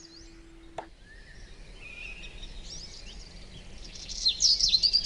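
Wild birds singing and chirping, several short rising and falling calls that grow louder near the end. Just under a second in, a faint steady hum stops with a click.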